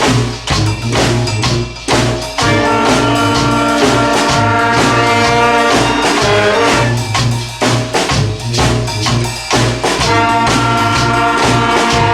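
Brass street band playing with drums: horns hold and move between chords over a steady drum beat.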